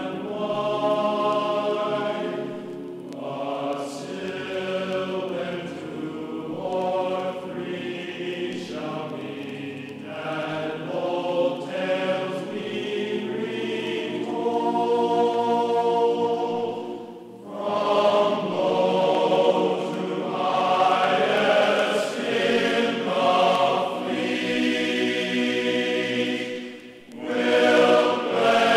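Choral music: voices singing slow, long-held chords that change every few seconds, with two brief dips, about two thirds of the way in and near the end.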